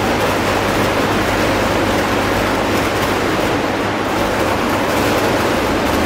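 Electric arc furnace arcing while melting steel: a loud, steady noise with a low, even hum underneath.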